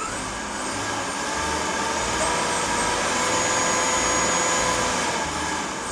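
Nova Viking DVR direct-drive drill press running free with an empty chuck, a steady motor whine over a hiss. It rises in pitch and loudness as the speed is dialed up toward about 5,700 rpm, then eases off near the end as the speed is turned back down.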